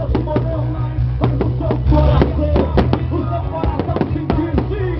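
Loud music with a heavy bass over a public-address system, with fireworks going off in irregular sharp pops and bangs.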